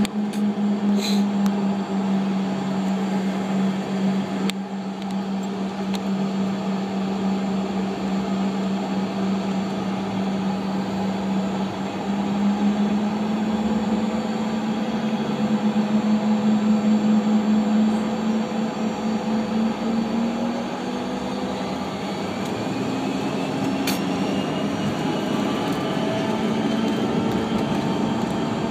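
Cabin noise of a Bombardier CRJ-200 regional jet taxiing: a steady hum from its engines and air conditioning, with a strong low tone that fades about twenty seconds in. A faint rising whine comes in near the end.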